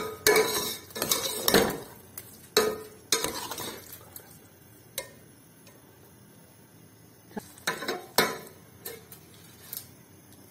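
A steel ladle scraping and knocking against the sides of a stainless steel pot while stirring thick carrot halwa to mix in sugar. The knocks come quickly in the first few seconds, ease off in the middle, and return as a few clinks near the end.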